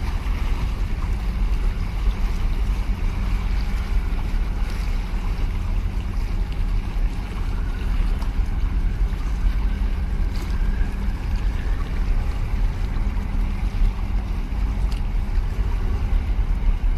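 Wind blowing on the microphone as a steady low rumble, with sea water washing against concrete breakwater blocks.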